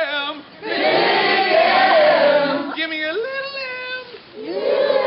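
A group of people singing and calling out together in a sing-along, many voices overlapping.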